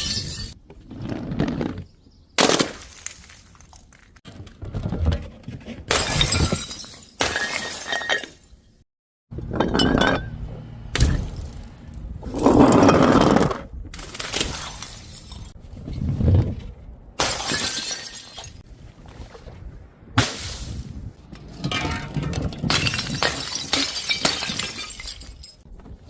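Glass bottles and jars shattering one after another: about a dozen separate crashes, each followed by a brief tinkle of falling shards, with a short dead gap a little before the middle.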